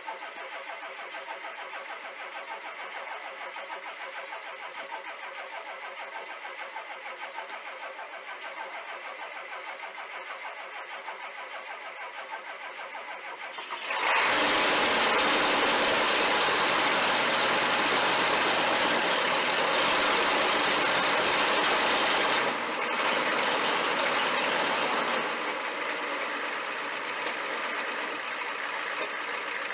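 1993 Ford F-350's 7.3-litre IDI diesel V8 in a cold start: the starter cranks it with a steady pulsing for about fourteen seconds before it catches, then the engine runs loud, its level dropping in two steps near the end.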